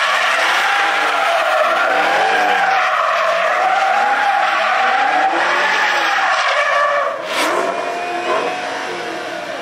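Car doing donuts: tires squealing and skidding while the engine is held at high revs, its pitch wavering up and down. The engine and tire noise ease off about seven seconds in.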